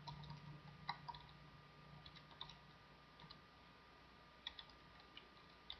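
Faint computer keyboard typing: a dozen or so scattered, irregular key clicks over a faint steady hum.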